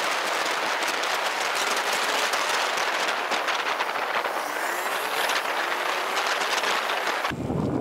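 Steady rushing wind and road noise from a moving motorcycle, with the engine's note faintly rising partway through. The bass is missing, and the noise cuts off abruptly near the end.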